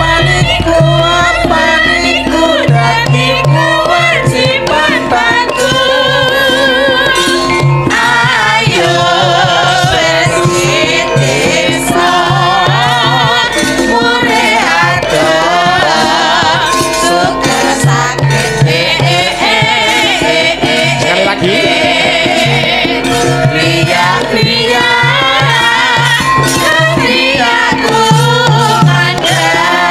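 Several sinden, female Javanese singers, singing together in wavering, ornamented lines over gamelan accompaniment with drum strokes.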